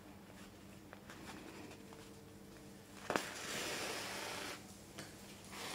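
Wool yarn drawn through a padded fabric cushion: a small click about three seconds in, then a soft rasping hiss for about a second and a half as the yarn is pulled through and tightened.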